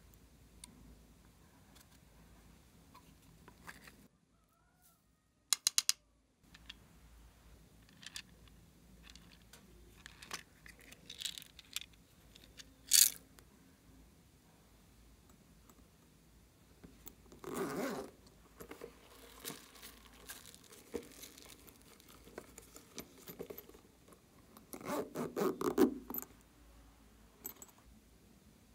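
Small decorations, beads and foam balls, being poured and dropped into a glass dish of slime: scattered light taps and clicks, with a sharp click about halfway through and two longer clusters of rapid pattering, a little past the middle and near the end.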